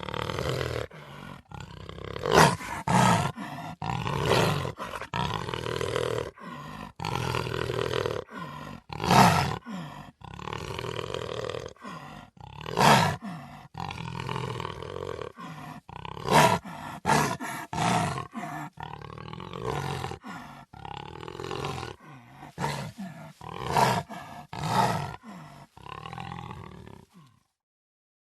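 Cheetah vocalizing in a long run of short, loud, rough calls at irregular intervals, which cut off abruptly near the end.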